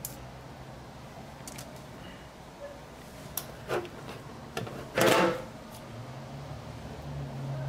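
Scattered clicks and knocks of objects being handled, with one louder clatter about five seconds in, over a low steady hum.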